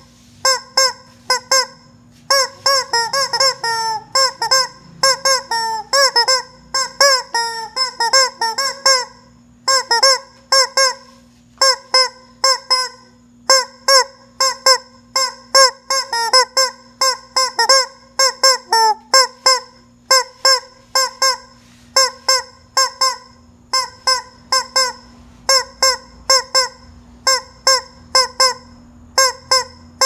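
Rubber screaming-chicken toy squeezed over and over, giving short honking squawks in quick runs of several at a time, with a few brief pauses between runs.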